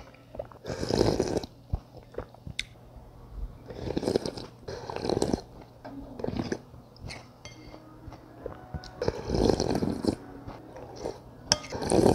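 Close-up eating sounds of a person having rice noodle soup: loud slurps of broth and noodles from a wooden spoon come every few seconds, with chewing and small mouth clicks between.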